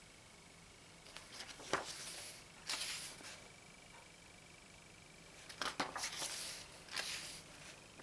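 Pages of a photobook being turned by hand: paper rustling and flapping twice, about two seconds in and again about six seconds in.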